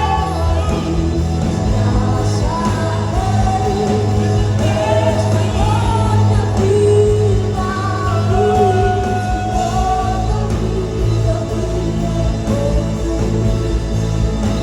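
Live gospel worship music: a sung melody over a band with a steady, sustained bass line.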